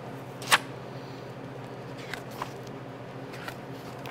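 Handling noise from a hardcover picture book being held and turned: one sharp tap about half a second in, then a few faint rustles, over a steady low room hum.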